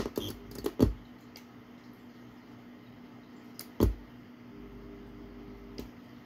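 Sharp clicks from the ATU-100 automatic antenna tuner as it switches its relays while tuning on the transceiver's carrier: a cluster of clicks in the first second, two more about four seconds in, and a last click near the end, with a faint steady tone just before it.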